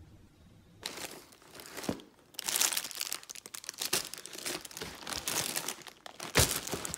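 Packaging of a mailed parcel being handled and torn open: crinkling and tearing in irregular bursts, starting about a second in, with a sharp louder rip near the end.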